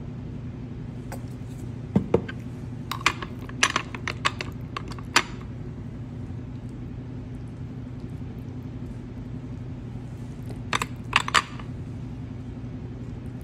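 A few light clinks and taps of a metal spoon against a glass serving dish while chicken salad is scooped out, in two short clusters, over a steady low hum.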